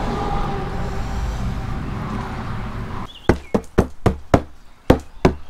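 A quick, uneven run of about eight sharp knocks and clacks, starting about three seconds in, as items are handled and set down while tidying up. Before them there is only a steady background rush.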